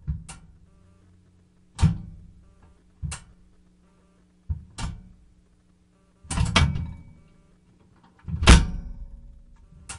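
Hollow knocks and thuds from a microwave oven being handled, with its door and cavity bumped. There are about eight irregularly spaced knocks, each dying away quickly, over a faint steady low hum.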